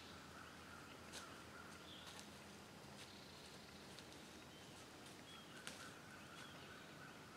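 Near silence: quiet woodland ambience with faint bird chirps and a few soft clicks, the sharpest about five and a half seconds in.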